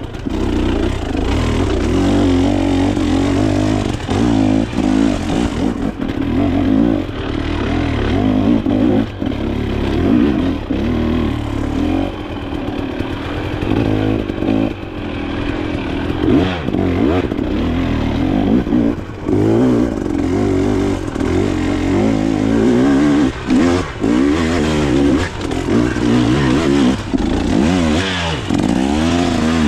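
Dirt bike engine revving up and down continuously as it is ridden on an off-road trail, the throttle opening and closing every second or two, with clattering from the bike over rough ground.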